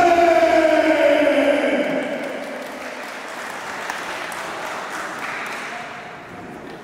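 A long held, pitched voice or note slides down and ends about two seconds in. A crowd applauding follows and gradually dies away.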